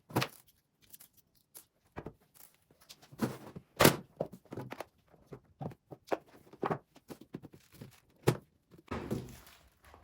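Household objects being handled and set down: a series of light knocks and thuds, the loudest about four seconds in.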